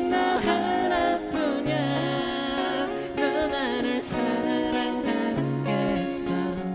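Acoustic guitars playing a folk-pop song with men singing into microphones.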